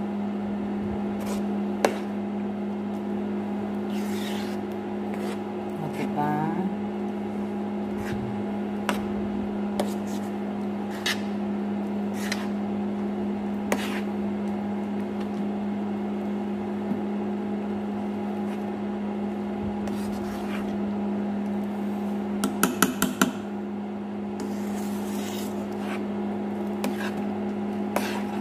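Metal spoon stirring thick black sticky rice in a nonstick pan, scraping and tapping against the pan now and then, with a quick run of taps a little past two-thirds through. Under it is a steady hum from the electric cooker.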